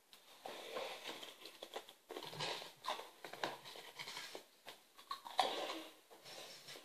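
Someone eating a snack: irregular small crackles, clicks and rustles, with no steady tone.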